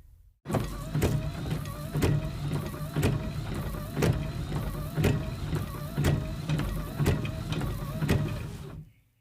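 A car's small electric motor whirring with a wavering whine and a regular click about twice a second. It fades out near the end.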